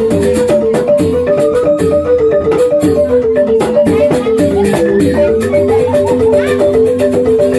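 Balinese rindik bamboo xylophones playing a fast, interlocking pattern of short repeated notes, with a higher melodic line gliding above it.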